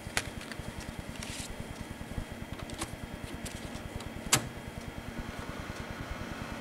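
A few short, sharp clicks and taps from handling things at a computer desk, the loudest a little past the middle, over a low steady hum with a fast low pulsing.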